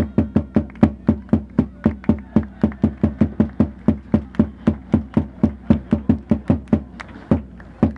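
A supporters' drum beaten in a fast, steady rhythm of about five strikes a second, with a short break near the end.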